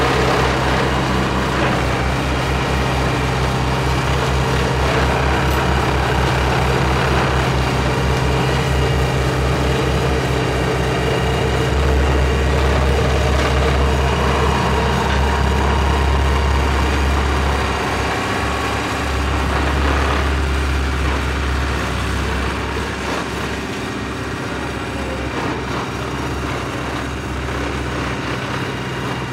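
Four-wheel-drive vibrating roller running, its engine giving a loud, steady drone with a heavy deep hum underneath. The deep hum flutters rapidly for the first dozen seconds, holds steady for a few seconds, then eases off a little about eighteen seconds in.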